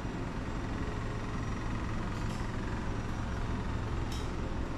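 Steady low mechanical hum and rumble, with a few faint clicks in the second half.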